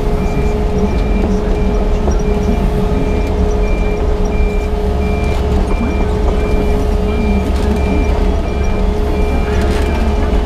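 Yanmar crawler excavator running under work, its diesel engine rumbling with a steady whine, while a high alarm beeps at an even rhythm throughout.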